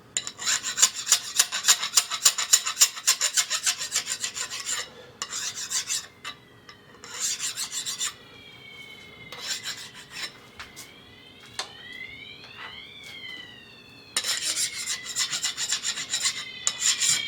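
Quick back-and-forth hand strokes deburring a machined metal part, about five a second, in a long run at the start, two short bursts, then another run near the end. In the pause between them a fainter electronic alarm tone sweeps up and down: the basement moisture alarm going off.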